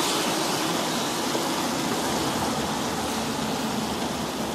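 Steady rushing wind noise, easing slightly in level.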